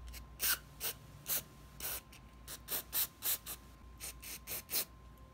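Aerosol cleaner sprayed through a red extension straw into a motorcycle fuel shutoff valve, in about a dozen short spurts to clean corrosion out of the valve body.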